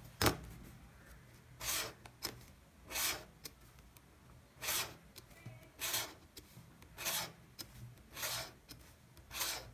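Pen scratching along a steel ruler on paper, ruling straight lines: about seven short strokes, roughly one every second and a bit, after a single knock just after the start.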